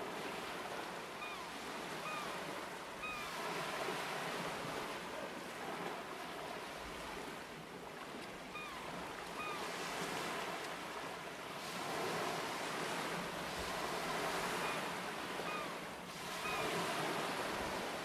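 Sea waves washing ashore, swelling and ebbing every four or five seconds, with short high chirps now and then.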